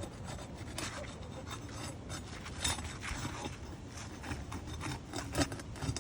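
Repeated scraping and rubbing of a tool worked under 3-tab asphalt roof shingles, in short irregular strokes, breaking the shingles' adhesive seal to free the damaged one.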